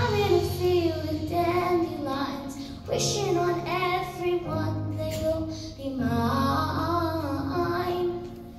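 A young girl singing into a microphone, her voice amplified, in three phrases starting about three seconds apart.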